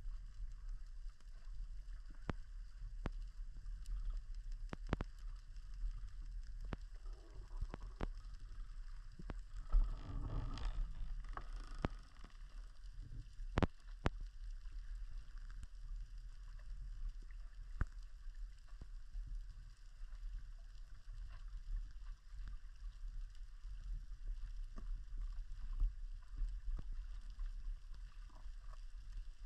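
Underwater sound picked up by a camera on a speargun: a steady low rumble of water with scattered sharp clicks throughout, and a brief gurgling rush about ten seconds in.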